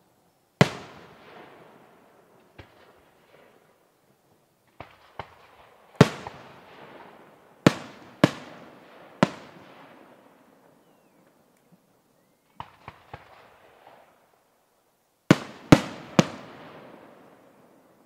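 Aerial firework shells bursting: about a dozen sharp bangs in irregular groups, each trailing off in a fading echo, with the loudest reports about half a second in, a cluster around the middle and a quick triple near the end.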